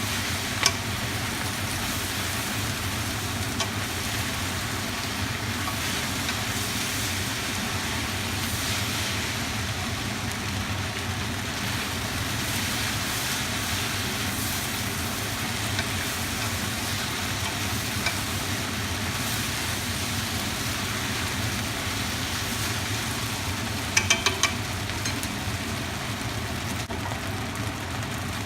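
Stir-fried rice noodles sizzling steadily in a hot pan while being stirred. Sharp clicks of a utensil against the pan come now and then, with a quick run of three near the end.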